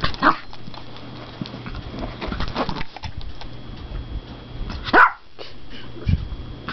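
Yorkshire terrier giving short, sharp barks: one at the start, softer ones about two and a half seconds in, and the loudest about five seconds in.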